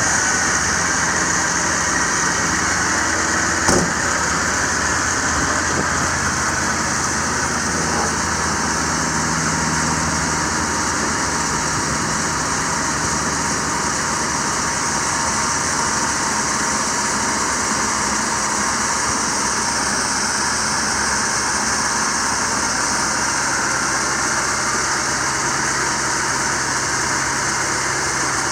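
A 6.6L Duramax diesel in a bucket truck idling steadily with the PTO engaged for the hydraulic boom. There is one sharp click about four seconds in.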